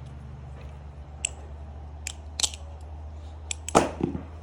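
The One Falcon balisong being flipped: scattered sharp clicks as the handles and blade meet, a muted type of tap, with one louder knock near the end.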